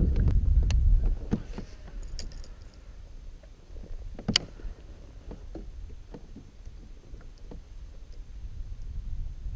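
Low rumble of wind and handling on the microphone for about the first second, then scattered small clicks and knocks of fishing tackle being handled in a plastic sit-on kayak. One sharp click comes about four seconds in, as a baitcasting rod is cast.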